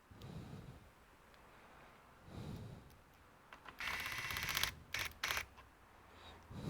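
Screwdriver driving small screws into a laptop case: a fast run of clicking about four seconds in, then two short bursts, with a few soft handling knocks before it.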